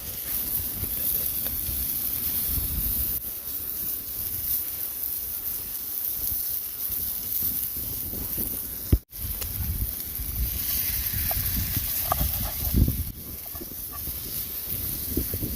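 Steady hiss of rain with gusts of wind rumbling on the microphone. The sound cuts out for an instant about nine seconds in.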